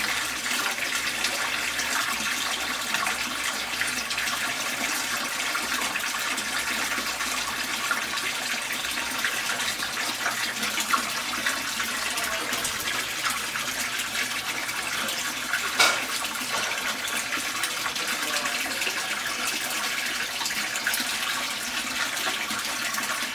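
GE Ecoperformance 15 kg washing machine pumping out its wash water before the spin cycle: a steady rush of draining water, with one brief knock about sixteen seconds in.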